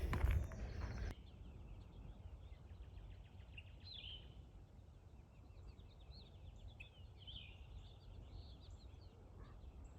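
Wild birds chirping and calling, many quick repeated notes with a few louder calls, over faint outdoor background noise. A louder second of rustling noise at the start cuts off abruptly.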